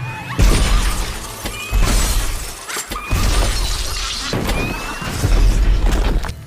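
Iron Man repulsor-blast sound effects: about five loud blasts in quick succession, each a deep boom with a hiss on top, with a thin rising whine before several of them, over background music.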